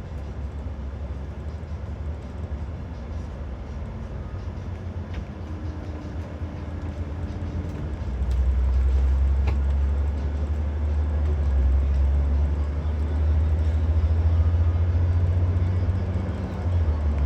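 Low, steady rumble of a coach's engine and tyres heard from inside the cabin, growing louder about eight seconds in.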